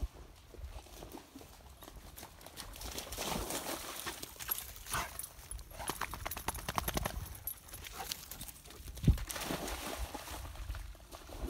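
A dog running through a muddy, water-filled ditch, its paws splashing in quick repeated strokes, with one heavier splash near the end.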